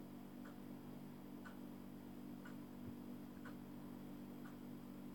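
Clock ticking faintly, about one tick a second, over a steady low hum.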